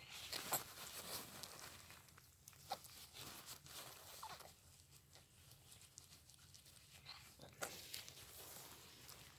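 A kitten moving about: faint scattered small clicks and rustles, with a couple of brief high squeaks.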